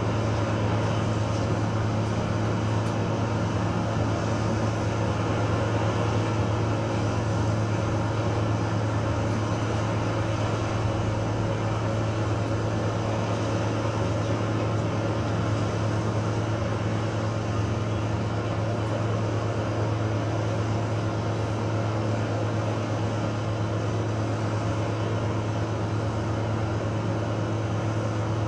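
Live electronic drone music from laptops and electronics: a steady low hum under a dense wash of noise, holding level without a beat.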